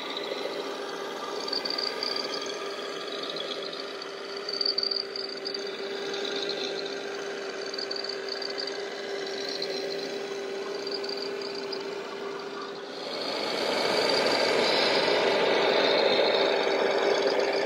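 Radio-controlled scale street sweeper truck running, a steady motor hum with its round side brush turning against the floor. It grows louder and noisier about thirteen seconds in.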